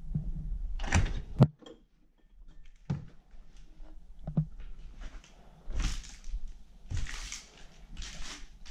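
Rustling and clatter among piled junk, with one sharp knock about a second and a half in, then a few crunching, scuffing sounds of steps over a floor strewn with debris.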